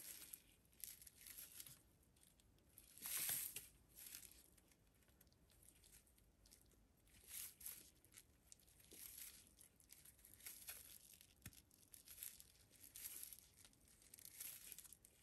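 Faint rustling of a paper-yarn strand being pulled and wound tightly around a bundle of paper yarn, in short irregular scrapes, the loudest about three seconds in.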